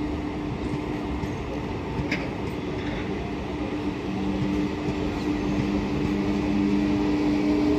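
Electric train running with a steady hum over rumbling noise. A second, lower hum joins about halfway through, and the sound grows louder toward the end.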